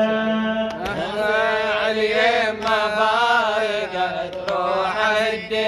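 A man's solo voice chanting an Arabic Shia mourning elegy (latmiya) through a microphone. He holds long, wavering notes between the sung lines, over a steady low hum.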